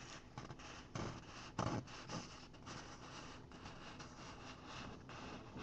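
Faint rubbing and rustling of a hand-held sheet of printer paper, with a couple of soft scrapes about one second and nearly two seconds in.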